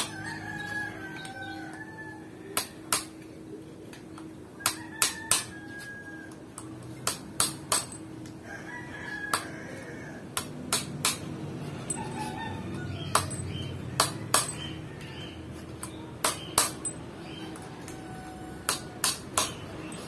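Sharp hammer blows on steel, mostly in quick groups of two or three a few seconds apart, driving a new steering-head ball-bearing race into a Keeway Cafe Racer 152's frame, with the old race used as a driver. A rooster crows in the background.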